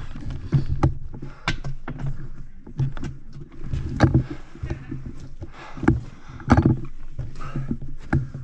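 Honda CR500's single-cylinder two-stroke engine running at low revs, with a steady low hum and repeated sharp knocks as the bike is worked slowly through a rocky rut.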